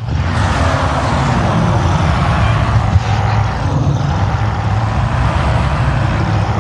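Cinematic bear sound effect: one long, steady, rough growl with a low rumbling pulse.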